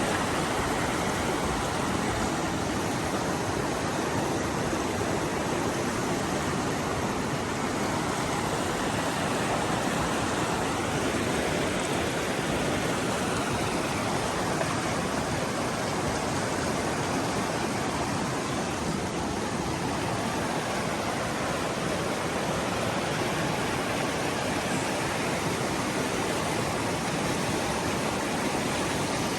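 Creek water rushing, a steady, even wash of noise that does not change.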